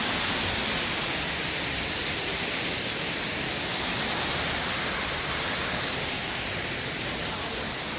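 Artificial waterfall rushing in a steady, even torrent of falling water.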